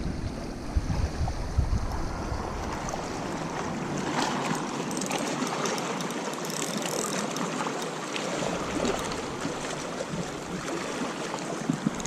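Steady rushing of river water, with a few faint scattered clicks.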